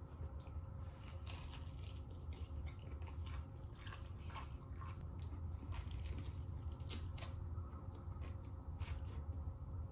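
A person chewing crispy fried chicken close to the microphone: irregular crunches of the breading with wet squishing, over a steady low hum.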